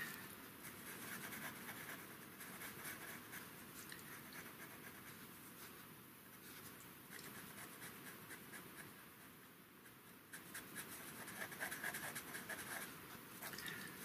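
Faint scratching of a pastel pencil stroked over textured pastel paper in short, repeated strokes, laying on colour. It grows a little louder about ten seconds in.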